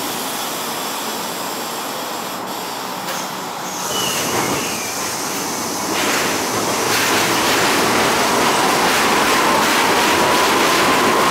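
R160 subway train approaching along elevated track, the rumble of its wheels on the rails growing louder about four seconds in and again around six seconds, then holding steady. A thin whining tone rises slightly near the end.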